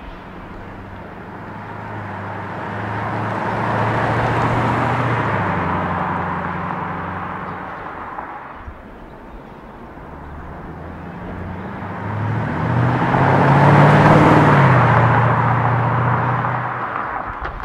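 Mercedes-Benz W207 E500's V8 through an MEC Design stainless steel aftermarket exhaust (Daytona sound version) on two slow drive-bys: the exhaust note swells as the car approaches and fades as it passes. The second pass is louder, about two-thirds of the way through, and drops slightly in pitch as the car goes by.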